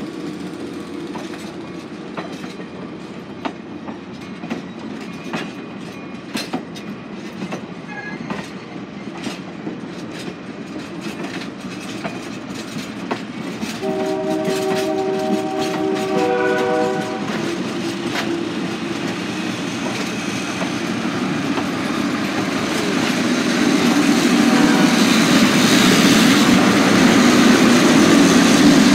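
Heritage passenger train rolling slowly past, its wheels clicking over the rail joints. About halfway through, the train's multi-note horn sounds for about three seconds. Near the end the diesel locomotive's engine grows louder as it comes close.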